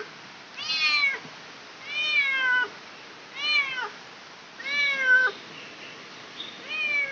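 A cat meowing five times in a steady series, about one call every second and a half, each call rising and then falling in pitch.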